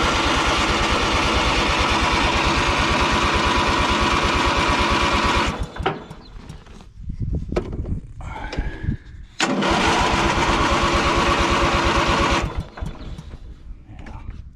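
Craftsman LT1000 lawn tractor's 19.5 hp Briggs & Stratton engine running on choke just after a cold start. It cuts out about five seconds in, catches again a few seconds later, then dies again near the end. The owner takes the stalling for a fuel supply problem: the float bowl is not filling.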